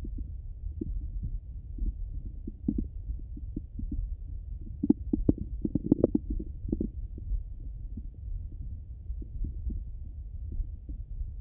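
Bowel sounds of a hungry stomach heard through a stethoscope: a steady low rumble with scattered gurgles and pops. A cluster of louder gurgling comes from about five to seven seconds in.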